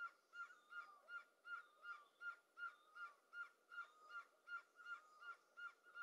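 Great barbet calling: a faint, evenly repeated note, each one dropping in pitch, about two and a half notes a second.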